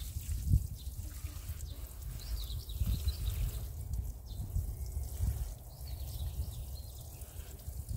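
Water sprinkling from a watering can onto the leaves and soil of a cucumber and tomato bed, over a low rumble.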